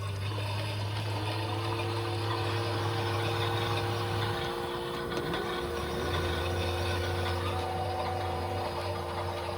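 Toy washing machines running their wash, their small electric motors turning the drums with steady hums. A low hum stops for about a second and a half near the middle and then starts again, and a second, higher hum sets in about a second in.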